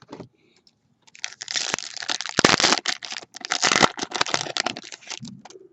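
Crinkling and crackling of a trading-card pack's wrapper and cards being handled, starting about a second in and running until near the end, with many small sharp cracks.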